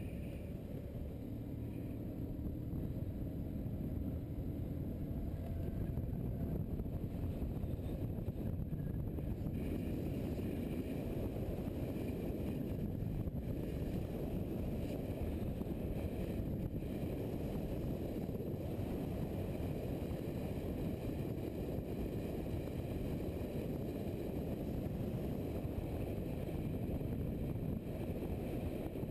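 Wind rushing over the microphone of a camera on a moving motorcycle, mixed with the bike's engine running at a steady cruise: a constant low rumble with no gear changes or revving.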